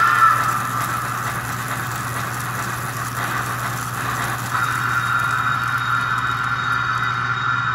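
A 65-year-old American Flyer S-gauge steam locomotive running on a test stand, its added digital sound system giving a steady steam-engine running sound over a low hum. About four and a half seconds in, a steady higher tone joins and the sound gets a little louder.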